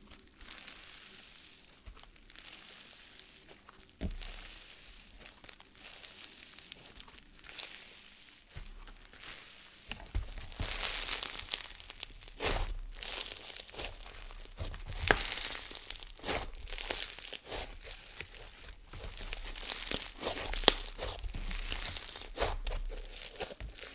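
Hands stretching, folding and squeezing a crunchy snow fizz slime, making dense crackling and small pops. It is softer for about the first ten seconds, then louder and busier as the slime is squeezed in the fists.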